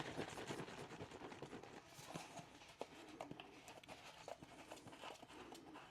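A bottle of tubeless tire sealant being shaken by hand: quick repeated knocks and sloshing that thin out after about two seconds into a few scattered light clicks from handling the bottle.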